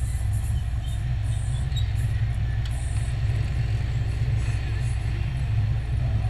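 Steady low rumble of an idling car engine, with motorcycles and tricycles moving around in street traffic.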